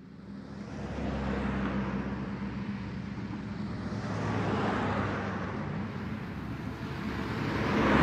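Road traffic: vehicles passing in swells that rise and fall three times, over a low steady hum.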